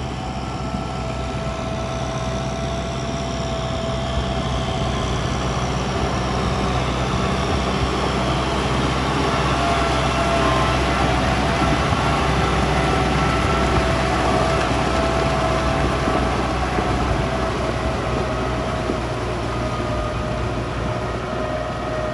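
Kubota M5040 tractor's four-cylinder diesel engine running steadily under load as it drives a rear rotary tiller through flooded paddy mud. A steady whine rides above the engine note. The sound grows louder toward the middle as the tractor passes close, then eases off.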